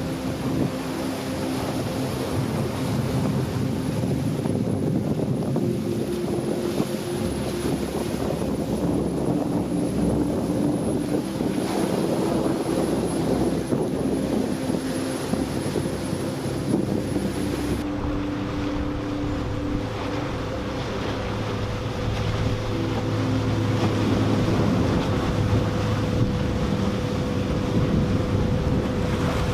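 Motorboat engines running, with several steady engine tones that shift and overlap, over wind and surf noise.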